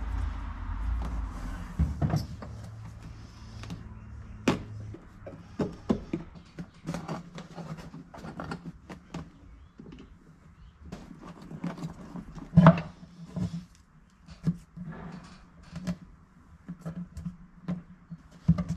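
Hand-handling noise from fitting a perforated car headliner: scattered rustles, scrapes and short clicks as the fabric edge is pressed and tucked into the metal grippers around the door opening. One sharper knock comes a little past the middle, over a low steady hum.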